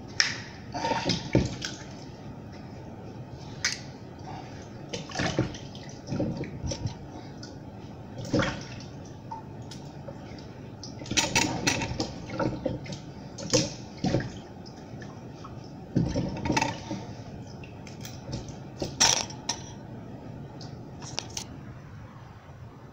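Water running into a kitchen sink while yams are scrubbed clean by hand, with irregular splashes and knocks as the wet tubers are rubbed and handled. It goes quieter near the end.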